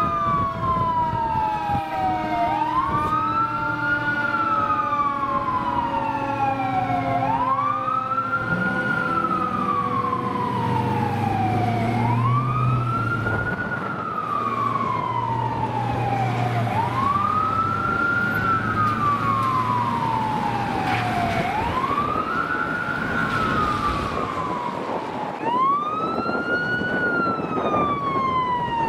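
Fire engine siren wailing: the pitch sweeps up quickly and slides slowly back down in a cycle of about four and a half seconds, six times over. A truck engine rumbles under it in the middle.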